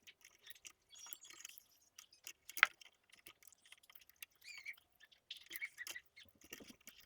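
A flathead screwdriver working at an outlet's stiff push-in wire terminals: faint metal clicks and scrapes with a few short squeaks, and one sharp click about two and a half seconds in.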